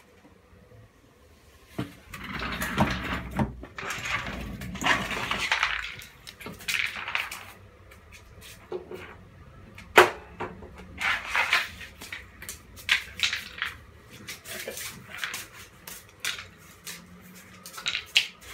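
Mastiff puppy playing with a hard chew bone on a tile floor: a few seconds of scuffling and rustling, then a string of sharp knocks and clicks, the loudest about ten seconds in.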